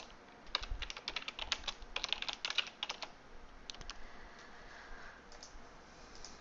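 Typing on a computer keyboard: a quick run of keystrokes for about two and a half seconds, then a few scattered clicks.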